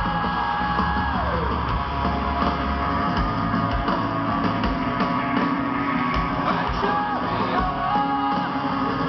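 Live rock band playing loud through the venue's PA, heard from within the audience: electric guitars over drums, with a held note sliding down in pitch about a second in.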